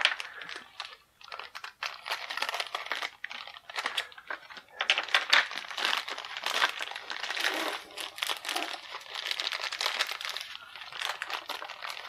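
Clear plastic polybag crinkling and crackling in irregular bursts as hands work it and tear it open.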